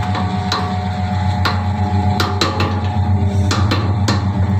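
Livestock feed mixer running, its paddles churning damp feed mash: a steady hum with irregular knocks and clatter throughout.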